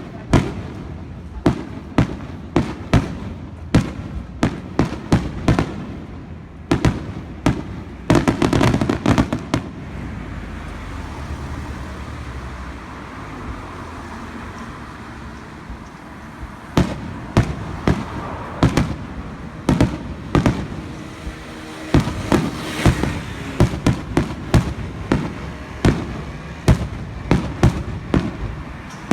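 Fireworks display: aerial shells bursting in a rapid series of sharp bangs, with a dense volley about eight seconds in. A quieter stretch of about six seconds follows in the middle before the bangs resume.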